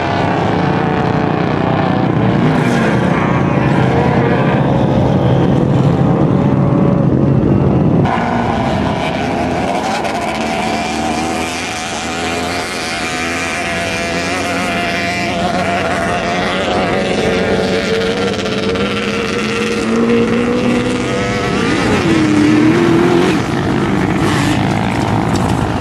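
Sand rail engines running and revving on the dunes, their pitch rising and falling. The sound changes abruptly about eight seconds in.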